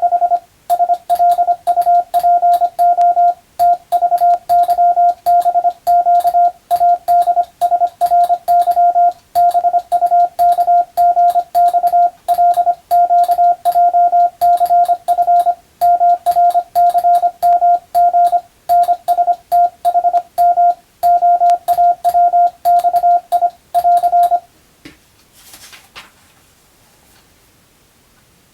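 Morse code (CW) practice tone: a single steady mid-pitched beep keyed on and off quickly in dots and dashes, sending code at receiving-practice speed. The sending stops about four seconds before the end, leaving a pause with one faint, brief noise.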